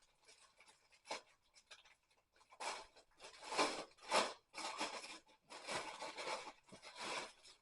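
Fabric rustling and rubbing as a pair of soft fleece-lined leggings is handled and unfolded, in several bursts through the second half.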